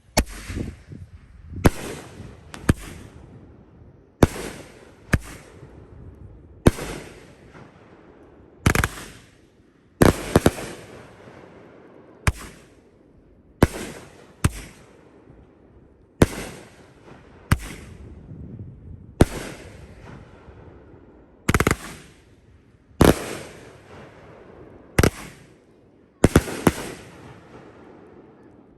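A 500-gram, 19-shot consumer firework cake firing: a string of loud shots about one to two seconds apart, some coming in quick pairs. Each shot is a sharp crack followed by a short rumbling decay.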